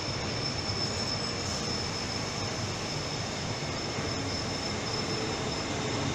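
Trenitalia regional electric multiple unit rolling slowly past along the platform as it pulls out, a steady rumble of wheels on rail with a thin, steady high whine over it.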